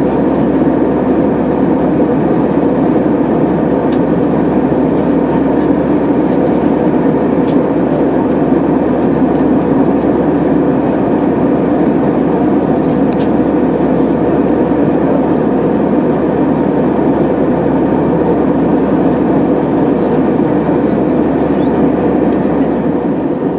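Steady cabin drone of an Airbus A320-214 in cruise flight: the hum of its CFM56 engines mixed with rushing air, loud and unchanging.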